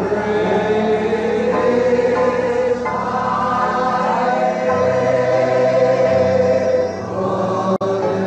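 Slow group singing of a worship song over held low accompanying notes, with a brief dropout in the recording near the end.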